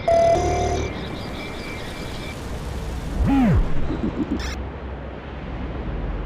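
Added animation sound effects: a short electronic chime at the start, then a pitched tone that rises and falls about three seconds in, with a brief crackle soon after, over a steady low rumble.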